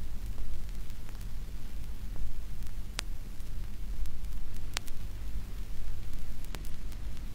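Background noise of an old, worn recording: a steady low electrical hum with hiss, broken by a few sharp crackle clicks, three of them louder than the rest.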